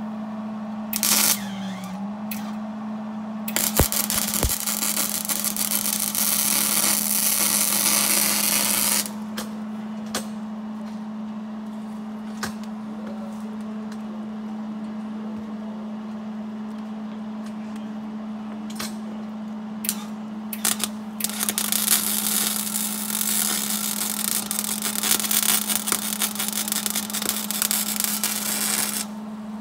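Electric arc welding on a steel transplanter frame: two long stretches of crackling arc, about five and seven seconds long, with a few short arc strikes between them. A steady hum runs underneath.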